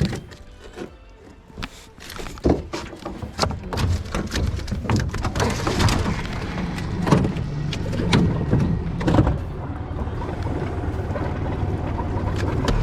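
Knocks and clicks of handling in a small fishing boat, over rushing water from a strong current, with a boat motor running steadily from about six seconds in.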